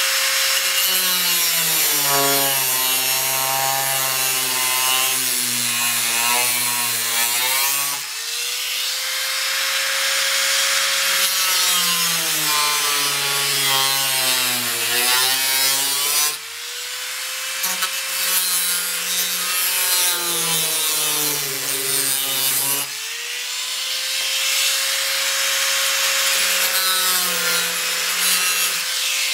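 Small corded power tool with a cut-off wheel cutting through a fiberglass hood: a harsh grinding hiss over the motor's whine. The whine drops in pitch each time the wheel bites into the fiberglass and climbs back when it is eased off, four times over.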